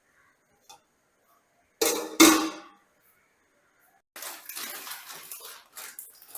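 Kitchenware clattering: two loud clanks about two seconds in, like a pot or pan being set down, then a busy scraping and rattling from about four seconds on.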